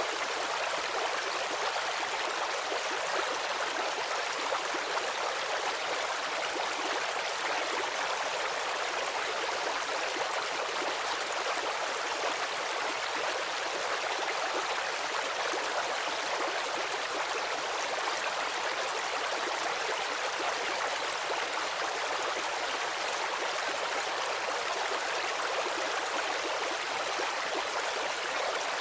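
Stream water running steadily over stones, an even rushing and babbling that stays constant throughout, with little deep rumble.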